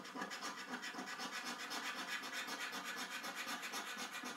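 A coin scraping the scratch-off coating from a paper scratchcard in quick, even back-and-forth strokes.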